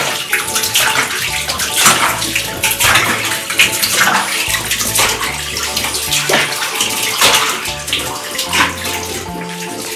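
Bathwater splashing and sloshing in a tub as a French bulldog is bathed, in irregular splashes. Background music with a bass line plays underneath.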